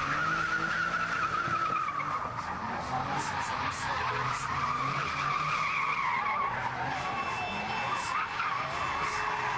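Car spinning doughnuts, its tyres squealing in one long, wavering screech that drifts up and down in pitch, with the engine revving underneath.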